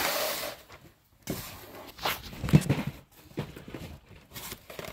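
Cardboard model-train boxes being handled and set down on a folding table: a brief rustle, then a few scattered knocks and taps, the loudest about two and a half seconds in.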